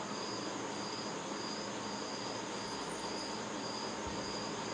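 A cricket chirping steadily, a high chirp repeating about two or three times a second, over a steady background hiss.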